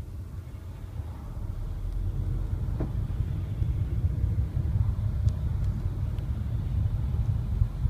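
Car with a seven-speed DSG DQ500 dual-clutch gearbox driving, a low rumble that grows louder over the first couple of seconds, with a few isolated knocks: the gearbox knock that shows up in third gear.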